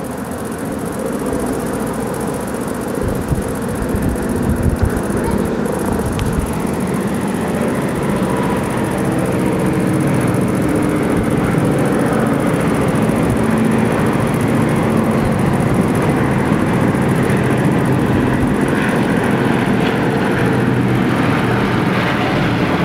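Massed vintage piston-engined propeller airliners droning overhead in formation. The engine drone grows louder over the first ten seconds or so and then holds steady.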